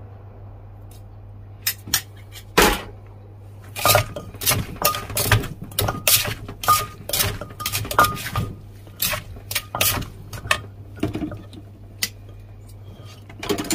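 Wooden pestle pounding shredded green papaya in a clay mortar, with a metal spoon knocking and clinking against the mortar as it turns the salad. There are a few knocks early, then a rapid irregular run of knocks with ringing spoon clinks from about four to ten seconds in, then only scattered knocks.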